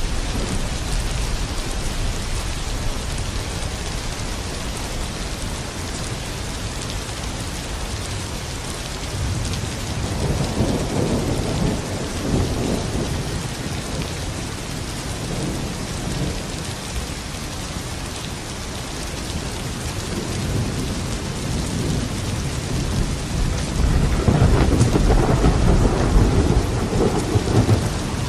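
Steady heavy rainfall with rolling thunder: two long low rumbles swell up, one about ten seconds in and a louder one near the end.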